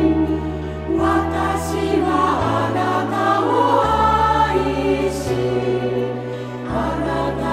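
Choral music: a choir singing over sustained low chords that change about every second and a half.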